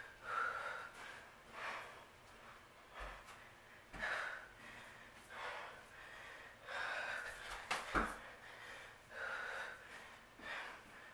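A woman breathing hard from exertion during a high-intensity workout, with a loud, breathy gasp or exhale every second or so. Two short thumps about four and eight seconds in.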